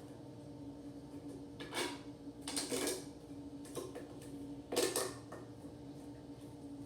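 A few brief handling noises, scrapes and knocks of small objects, at irregular intervals over a steady low hum.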